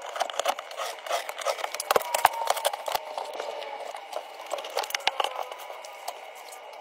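Irregular clicks, knocks and rattles of broken drywall debris and plastic being handled by a gloved hand around a PVC drain pipe, the knocks coming thickest in the middle.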